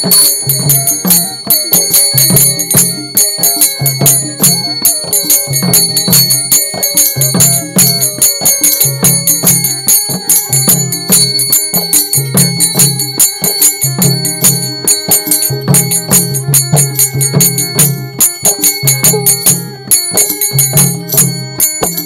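Instrumental interlude of a Bengali Baul folk song: a hand drum beating a steady repeating rhythm, with small hand cymbals and a tambourine jingling and ringing over it and a melody line running in the middle.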